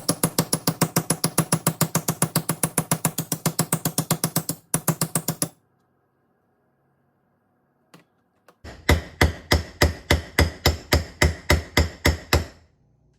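Hand tool working metal on a steering box: a fast, even run of sharp metallic clicks, about six a second, stops about five seconds in, and after a pause a slower run of about four a second follows and stops near the end.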